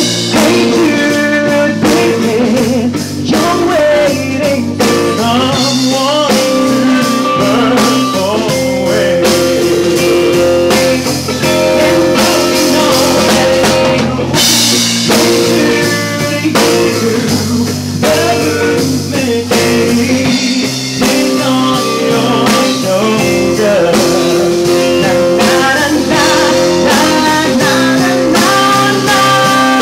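A live band playing a blues-rock song: a man sings lead into a handheld microphone over electric guitar and a drum kit keeping a steady beat.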